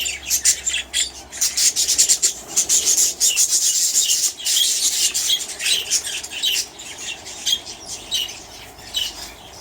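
A flock of small aviary birds chattering, with rapid overlapping chirps and squawks. For a few seconds near the start a rustling noise rises over the calls.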